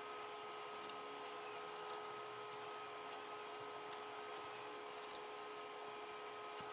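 Steady workshop machine hum with a few fixed tones, broken by light, high-pitched clicks in three short clusters, about one, two and five seconds in.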